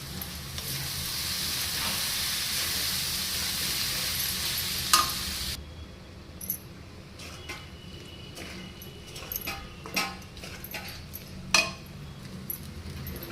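Food frying in a pan, sizzling steadily for about five and a half seconds and then cutting off suddenly, followed by scattered light clinks and taps of stirring.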